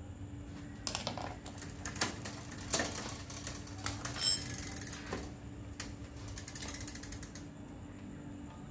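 Bicycle drivetrain turned by hand: the chain clatters and clicks through the rear derailleur and over the cassette, with a brief squeak about halfway through and a quick run of freewheel ticking near the end. This is the back wheel being spun while the rear derailleur is adjusted.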